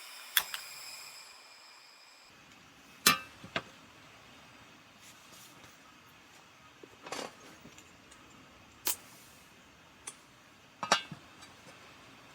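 Hard objects, likely camp cookware or gear, being handled: a series of sharp clinks and knocks, about seven spread over the stretch, with a low background hiss between them.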